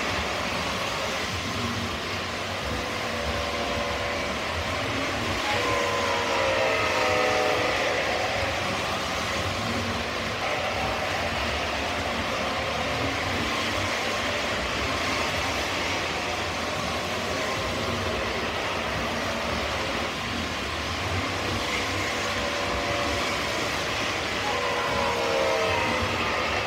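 O scale model trains running on the track, a steady rumble of wheels and motors. A multi-tone locomotive horn sounds twice, a few seconds in and again near the end.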